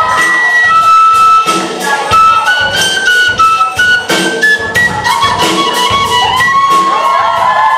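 Instrumental music with a steady beat and held melody notes that change pitch every second or so.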